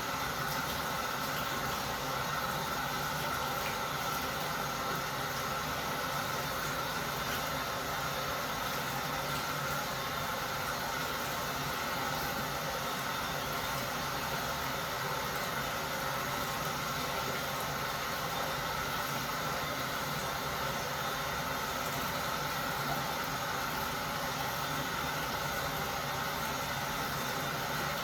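Steady, even hiss with no knocks, clinks or changes in level.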